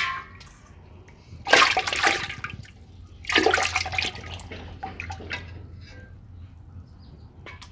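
Water splashing in a metal pot as a hand grabs live climbing perch and the fish thrash, with two loud splashes about one and a half and three and a half seconds in, then smaller splashes and drips.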